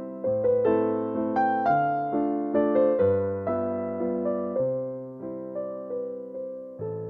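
Background music: a gentle piano melody struck about twice a second, each note fading, over low bass notes.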